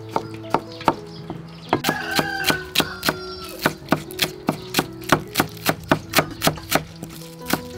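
Cleaver chopping green onions on a wooden cutting board: a steady run of sharp knocks that speeds up to about four strokes a second in the second half.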